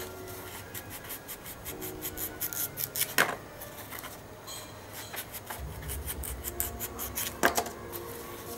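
Kitchen knife cutting and scraping at the fibrous skin of a palmyra palm fruit: a run of short rasping strokes, with two louder ones about three seconds in and near the end.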